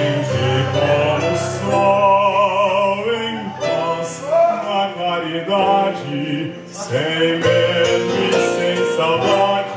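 A song playing: a voice singing with wide vibrato over instrumental accompaniment.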